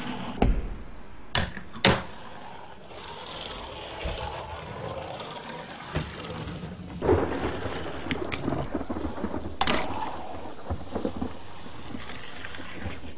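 Fingerboard wheels rolling with a rumbling noise across a hard surface, broken by sharp clacks of the small board popping and landing: three in the first two seconds and one more a little before the ten-second mark.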